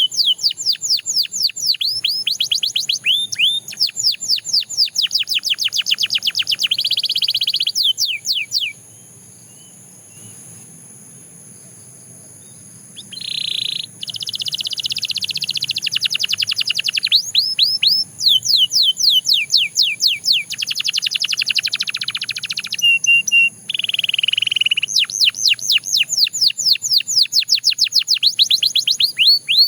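Canary singing: phrases of fast repeated notes, each sliding down in pitch, alternating with rapid trills and one short held note, broken by a pause of about four seconds near the start.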